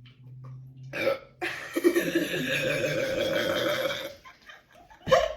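A person burping after drinking a bottle of fizzy Sprite: a short burp about a second in, then one long drawn-out burp lasting over two seconds, and a brief one near the end.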